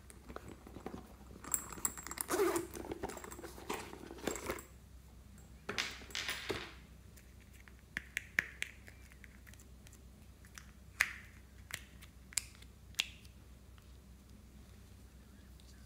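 Plastic containers being handled, rustling and knocking, followed by a series of sharp clicks as the hinged lids of a small plastic glitter palette are snapped open one after another.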